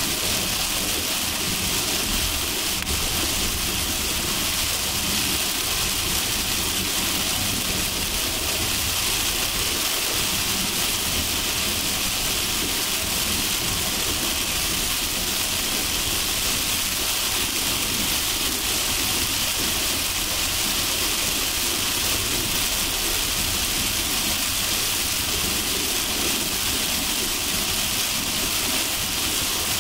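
Heavy rain on a car being driven on a highway: a steady, even hiss of rain with road and vehicle noise underneath.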